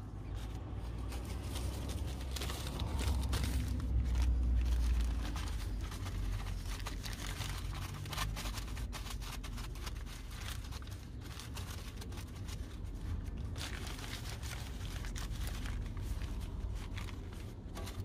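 Brown masking paper crinkling and rustling in irregular bursts as it is handled and tucked into place, over a steady low rumble that swells about three to five seconds in.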